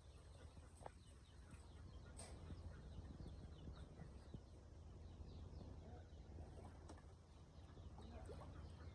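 Near silence: faint outdoor ambience with a low steady hum and many small, faint bird chirps scattered throughout, plus a few faint ticks.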